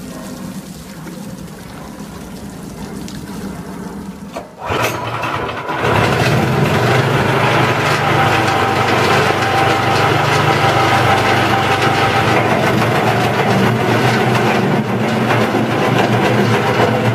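An engine starts about five seconds in and then runs steadily.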